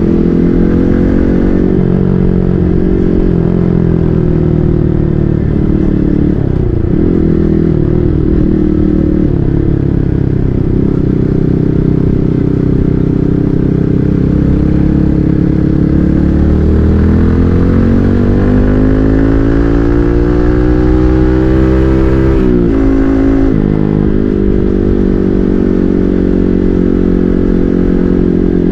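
Yamaha MT-15's 155 cc single-cylinder engine running through an SC Project full-system exhaust while riding. The engine note holds fairly steady, then climbs steadily for several seconds under acceleration about two-thirds of the way in, then drops off sharply before settling again.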